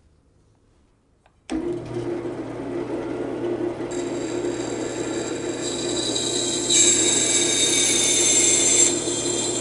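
Band saw switched on about a second and a half in, its motor running with a steady hum. From about four seconds its 1/8-inch, 14-teeth-per-inch blade cuts through thin-walled aluminum, adding a high-pitched whine that grows louder near the end and then eases off.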